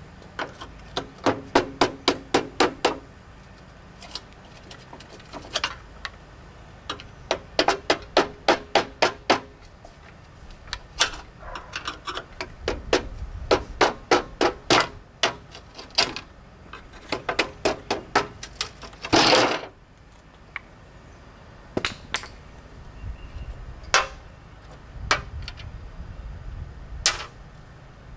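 Rubber mallet striking a pry tool wedged under a rusted steel stiffener plate on a mower deck, in runs of quick blows at about four or five a second, prying the plate loose. One longer harsh noise comes a little past two-thirds through.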